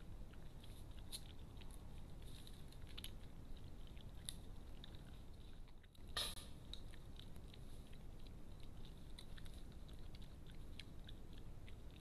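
European badgers foraging and chewing food in the grass close to the microphone: scattered small crunches and clicks over a low steady hiss, with one louder, sharper crack about six seconds in.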